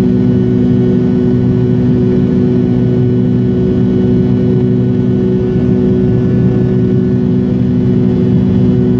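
Steady cabin drone inside an MD-80 airliner in flight: its rear-mounted jet engines and the airflow make an even roar with several steady low hum tones.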